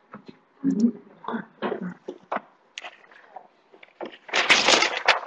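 A person's voice, low and broken, close to the microphone, followed by dense scratchy handling noise near the end.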